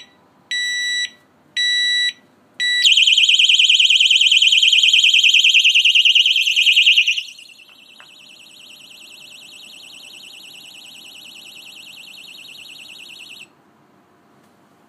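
Kovix KD6 alarm disc lock: three more of its short arming beeps, about one a second, then its alarm siren set off by moving the lock, a loud warbling wail. About seven seconds in the siren drops much lower, and it cuts off suddenly near the end.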